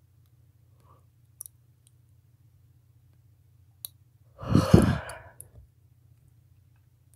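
A woman yawning: one loud, breathy yawn lasting about a second, a little past halfway through, with a few faint clicks before and after it.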